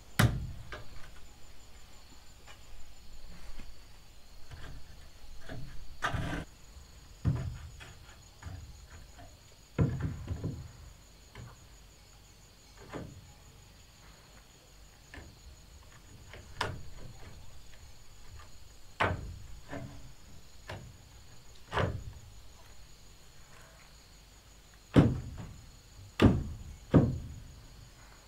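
Irregular hollow wooden knocks and thunks, about a dozen spread out, the loudest three close together near the end, as bamboo poles are handled and set against a wooden and bamboo railing.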